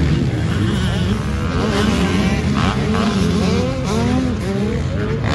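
Several motocross bikes racing on a dirt track, their engines revving up and falling back again and again as the riders shift and throttle through the turns and jumps, many engine notes overlapping.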